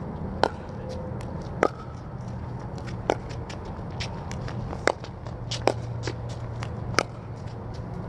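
A pickleball rally: paddles strike the plastic ball six times, a sharp pock every one to two seconds, with fainter clicks and ticks in between.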